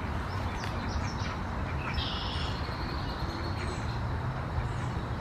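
Songbirds chirping in short high notes, with one buzzy held call about two seconds in, over a steady low background rumble.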